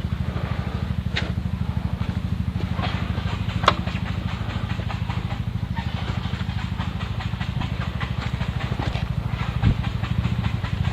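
Motorcycle engine running steadily close to the microphone, with a sharp knock about a third of the way in and a dull thump near the end.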